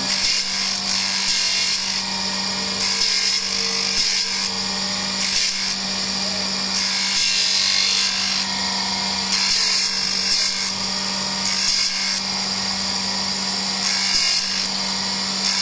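Surface grinder's abrasive wheel grinding a steel ring on the magnetic chuck, over a steady motor hum. The grinding noise comes and goes every second or two as the reciprocating table carries the ring under the wheel and off it again.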